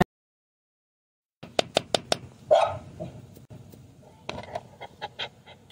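After about a second and a half of silence, a corgi barks behind a plastic pet-door flap, and the flap clacks in runs of sharp clicks and knocks as the dog pushes against it.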